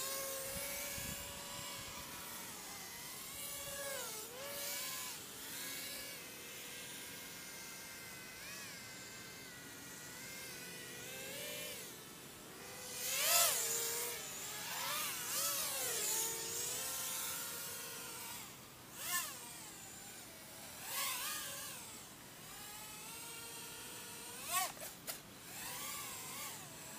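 Micro FPV quadcopter's brushless motors (DYS 1104 4000kv spinning Gemfan 3025 props) whining in flight, the pitch sliding up and down with throttle. In the second half come several short, louder throttle punches, each a quick rise and fall in pitch.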